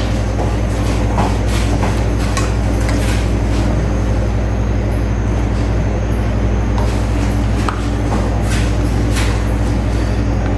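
A steady, loud low mechanical hum with a few light clicks and knocks over it.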